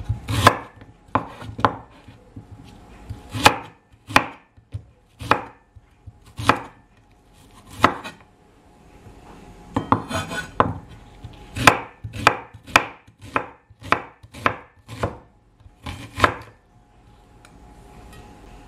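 Chef's knife slicing shallots on a wooden cutting board: sharp knocks of the blade meeting the board, coming irregularly at about one to two a second.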